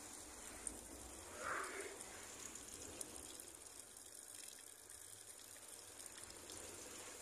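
Faint, steady outdoor background noise, a low rushing hiss with no clear single source, with one short faint sound about one and a half seconds in.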